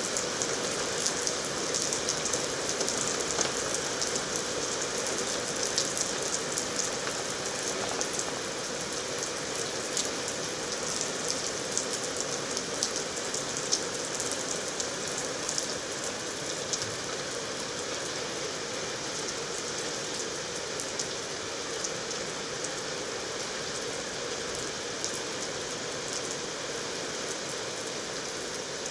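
Heavy, steady downpour of rain falling on a tiled rooftop terrace, with many single drops ticking close by, more of them in the first half.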